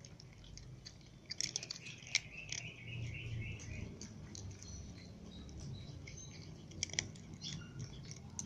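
Cats crunching dry kibble: irregular crisp crunches and clicks, busiest about one and a half to three and a half seconds in, with another sharp crunch at about seven seconds.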